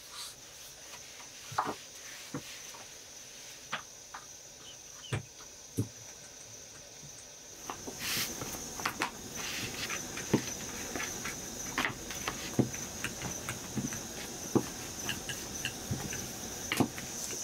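Insects chirring in a steady, high-pitched drone, with scattered light clicks and knocks of things being handled. A louder hiss joins about eight seconds in.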